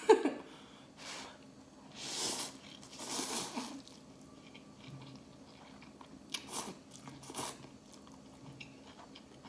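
Slurping and chewing instant ramen noodles close to the microphone: a few hissing slurps in the first four seconds, then softer chewing with wet mouth clicks.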